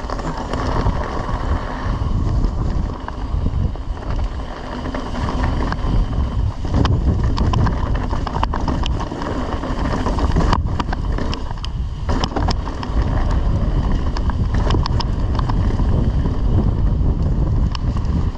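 Mountain bike rolling fast down a dirt trail: a steady low rumble of wind buffeting the camera microphone and tyres on dirt, with sharp clicks and rattles from the bike over bumps from about seven seconds in.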